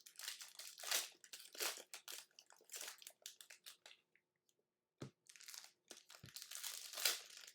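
Trading-card pack wrappers crinkling and crackling as they are handled and opened, in an irregular run of rustles with a short pause about two-thirds of the way through.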